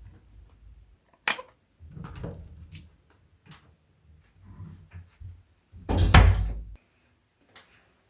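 A sharp click about a second in, a few softer knocks, then a louder thump about six seconds in.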